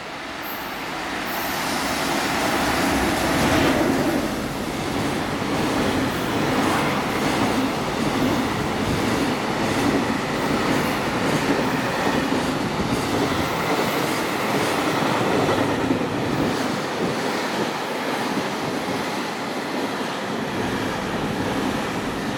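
JR Freight EF210 electric locomotive passing through a station at speed at the head of a container freight train, followed by the long string of container wagons clacking over the rail joints. The sound builds as the locomotive approaches and is loudest as it goes by about four seconds in, then holds steady while the wagons pass and eases off near the end.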